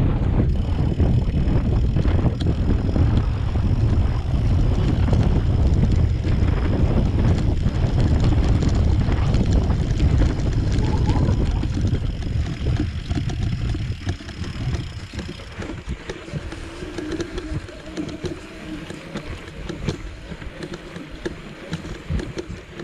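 Wind buffeting the microphone while riding over a grassy track, with a heavy low rumble for about the first fourteen seconds that then eases off.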